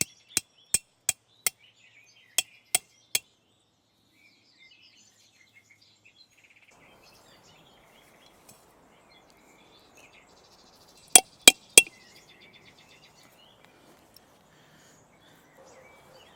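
Hammer blows knocking in tent pegs: sharp, evenly spaced strikes about three a second, five in a row at the start, three more just after, then a quick run of three about eleven seconds in.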